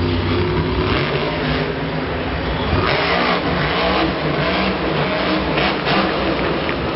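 Monster truck's supercharged V8 engine revving hard, its pitch rising and falling again and again as the truck wheelies and turns.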